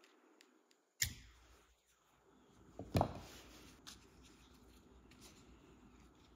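Leather cover being worked off a Mercedes gear knob by hand: a sharp click about a second in, a louder knock about three seconds in, then light rubbing and small ticks of leather against the plastic knob.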